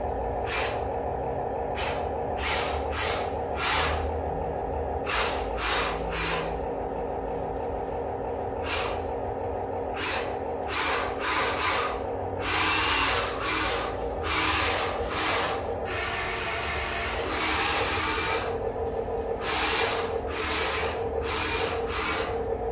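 Remote-control toy excavator's small electric motors and gearboxes whining steadily as it drives on its tracks, with frequent sharp clicks. A louder hissing, scraping stretch comes about halfway through.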